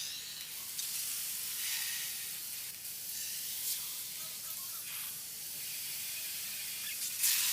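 Steady hissing noise, high and thin, with a few brief louder swells.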